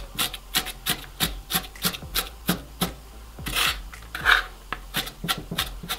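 Kitchen knife mincing onion on a plastic cutting board: quick, even chopping strikes, about three a second. About halfway there is a short break with two brief scraping sounds, then the chopping resumes.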